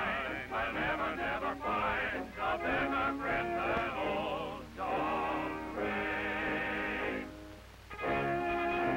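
Cartoon soundtrack music with a melody that wavers in heavy vibrato. It fades briefly, and at about eight seconds in a new set of sustained notes starts with the end title.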